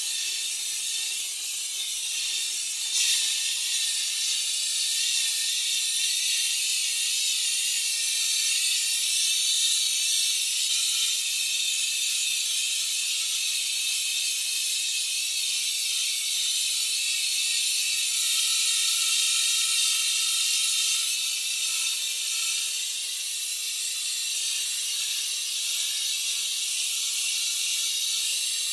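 Paint spray gun hissing steadily as it sprays a fine mist of paint onto bare metal toy parts, with a slight rise in level about three seconds in.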